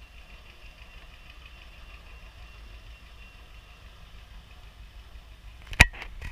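Steady low rumble of an idling engine, with one sharp knock near the end.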